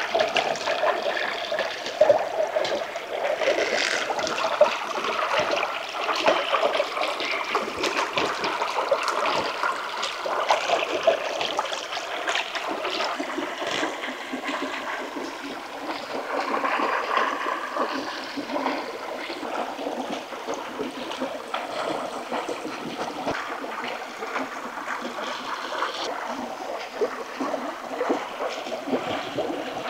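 Stream water running and trickling steadily, with many small clicks and splashes mixed in.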